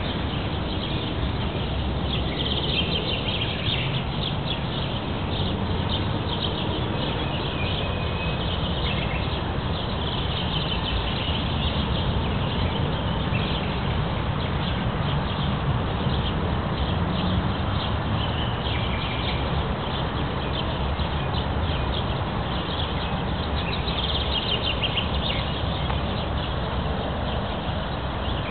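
Canada geese grazing, their bills tearing grass in rapid runs of small clicks and rips. There are a few short high chirps and a steady low background rumble.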